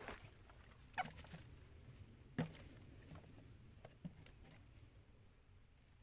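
Faint snaps over a soft rustle, with the sharpest snaps about a second in and near the middle, and a smaller one about four seconds in.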